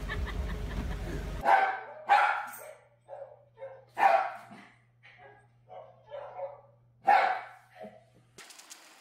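A dog barking: four loud barks with several quieter, shorter ones between them.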